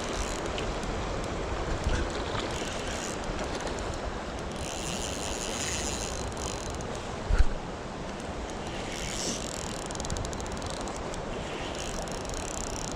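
Steady rush of flowing creek water, with one short, loud thump a little past halfway.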